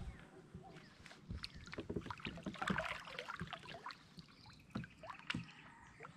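Small knocks, clicks and water sounds from a fishing kayak as the angler handles his rod and shifts in the seat, most of them in the first half, with two sharper knocks near the end.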